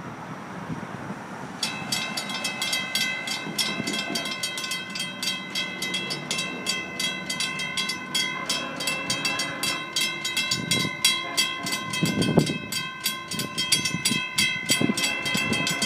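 Railroad grade-crossing warning bell ringing in fast, even strikes, about five a second, starting abruptly about two seconds in. Under it, a few low heavy thuds in the second half.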